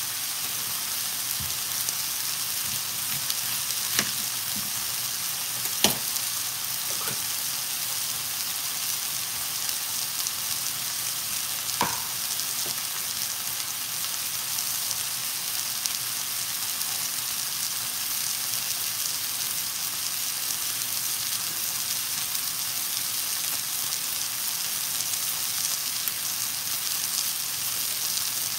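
Lamb chops searing in oil in a cast-iron skillet: a steady, even sizzle. A few light knocks break in about 4, 6 and 12 seconds in, the one near 6 seconds the loudest.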